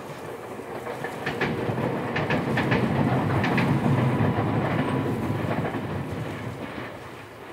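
Two-car electric train of the Ryutetsu Nagareyama Line passing over a river bridge. Its rumble swells to its loudest in the middle and then fades, with the wheels clicking over the rail joints in the first half.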